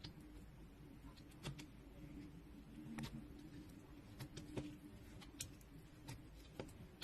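Slime being worked by hand, giving faint, irregular sticky clicks and small pops over a low steady hum.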